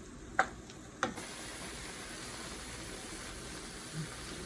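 Sauce sizzling in a frying pan with a steady hiss, which begins just after two sharp knocks about half a second and a second in.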